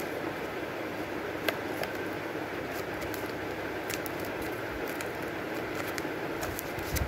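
Steady background noise with a few scattered small clicks and rustles of stiff paper being handled; the sharpest click comes about one and a half seconds in.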